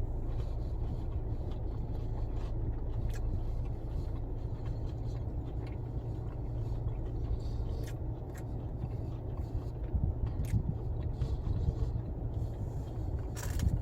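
A person biting into and chewing breaded fish strips, small crunches and clicks scattered through, over a steady low rumble.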